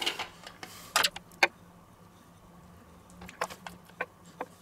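Two sharp knocks about a second in as a stainless steel tray and raw duck breasts are handled on a wooden cutting board. Near the end, a run of light clicks as a knife scores the duck skin against the board.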